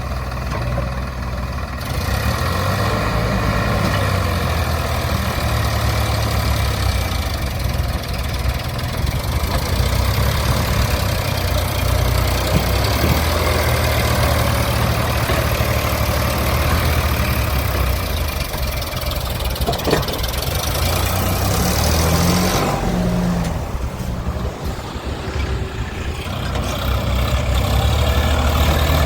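Heavy diesel engine of a backhoe loader or tractor running steadily, with one sharp knock about two-thirds of the way through and a brief shift in the engine note soon after.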